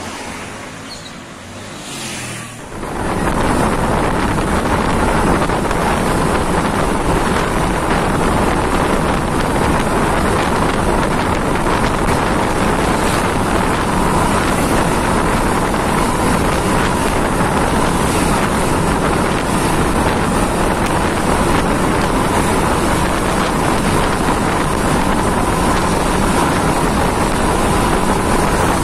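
Loud, steady wind rush on the microphone and road noise from a vehicle following close behind a coach bus at speed, with the bus's engine running underneath; it starts suddenly about three seconds in. Before that, quieter street traffic as the bus approaches.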